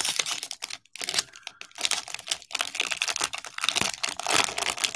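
Trading card pack wrapper crinkling and tearing as a pack is opened and the cards are handled, a dense run of small crackles and clicks.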